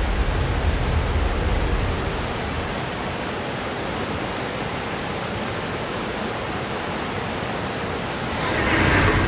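Large waterfall: a steady, dense rush of falling water with a low rumble underneath, swelling slightly near the end.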